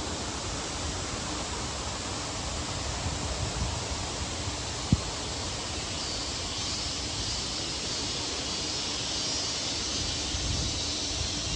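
Steady rush of flowing water from a mountain stream, with a single sharp click about five seconds in.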